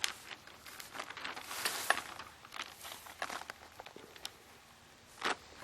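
Sail cloth and kit parts being handled: irregular crinkling rustles with light clicks, busiest about two seconds in and with one sharper rustle near the end.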